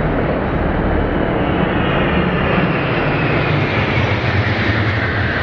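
Formation of military jets flying low overhead in a parade flypast: a loud, steady engine roar with a whine that slowly drops in pitch as they pass.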